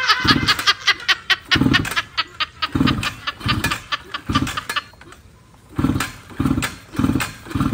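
Yamaha underbone motorcycle being kick-started over and over, about eight short turns of the engine in two runs with a pause between, without it catching and running.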